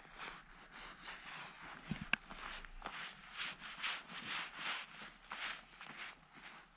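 Crunchy footsteps, about two steps a second, with one sharp click about two seconds in.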